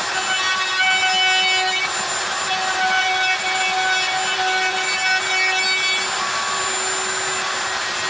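Wood router running and cutting dovetails in drawer stock on a dovetail jig: a steady high whine over the noise of the cut, the whine fading and coming back a few times.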